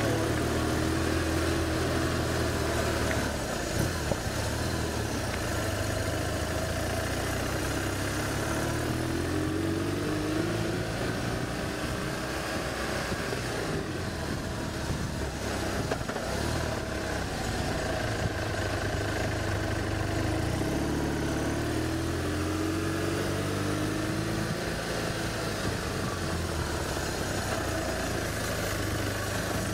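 Engine of the filming vehicle heard from onboard, climbing a mountain road, its pitch rising and falling repeatedly as the throttle opens and eases, over steady wind noise.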